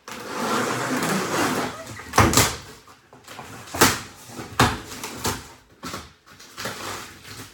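A large cardboard shipping box being torn and worked open by hand: about two seconds of continuous scraping and tearing of the cardboard, then several sharp knocks and thumps as the top flaps are pulled open.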